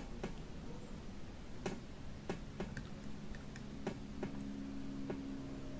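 Faint, irregular clicks of multimeter probe tips touching and scraping the metal terminals of a washing-machine inverter motor's stator winding during a resistance check, over a faint steady hum.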